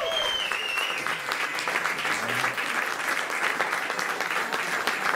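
Audience applauding, a dense steady clapping that starts as the song's last held note ends in the first second.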